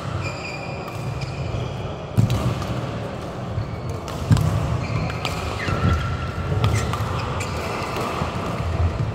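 Badminton play on a sports-hall court: sneakers squeaking on the court surface, heavy footsteps thudding, and the crack of rackets hitting the shuttlecock. There are a few louder thuds from landing feet about two, four and six seconds in.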